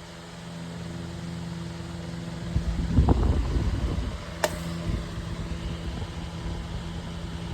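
Metal 12-inch oscillating table fan with a bent blade running on high speed: a steady motor hum that builds up over the first second as the fan spins up. There is a low rumbling swell about three seconds in and a single sharp click about a second and a half later.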